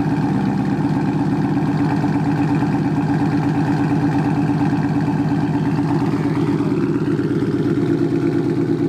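2016 Ford Mustang GT's 5.0-litre V8 idling steadily at the tailpipes, running through an exhaust with an H-pipe in place of the resonator. The clamped H-pipe joints leak a little exhaust.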